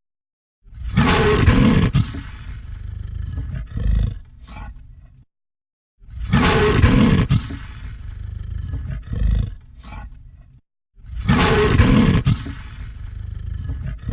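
Lion roaring, the same roar heard three times about five seconds apart. Each roar starts loud and tails off into a few lower, fading grunts, then cuts to silence before the next.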